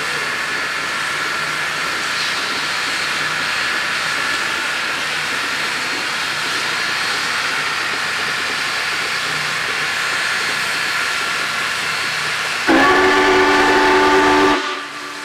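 Steady steam hiss from Union Pacific 3985, a 4-6-6-4 Challenger steam locomotive. Near the end its whistle sounds one loud blast of about two seconds, several notes at once, which stops suddenly.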